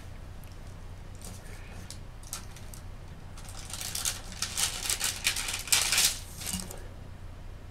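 Wooden-handled clay sculpting tools clicking and scraping against each other and the tabletop as they are handled. There is a quick cluster of clicks about halfway through, loudest just before the end of it, over a steady low hum.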